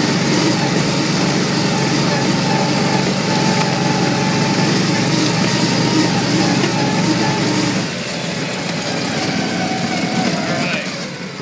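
Argo six-wheeled amphibious ATV's engine running steadily as it drives along a rough lane, then dropping in level about eight seconds in as it eases off.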